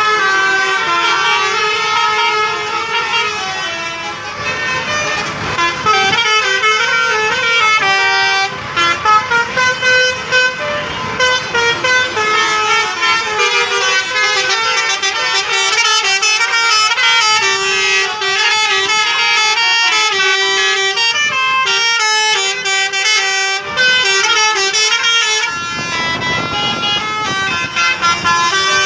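Bus 'telolet' horns, multi-tone air horns on buses, playing quick stepping tunes one after another almost without a break.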